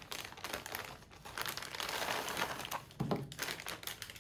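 Thin plastic packaging bag crinkling and rustling as the pump and hose are pulled out of it, with a soft knock about three seconds in.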